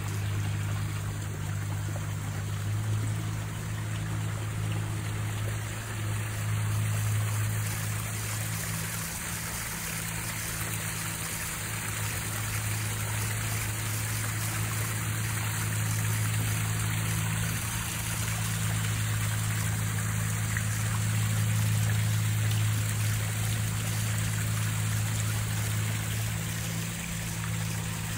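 Backyard pond waterfall and fountain splashing steadily into the water, with a steady low mechanical hum underneath.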